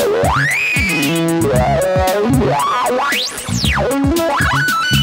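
Electronic music: a synthesizer tone sweeping up and down in pitch in long glides over low bass notes, with sharp clicks throughout.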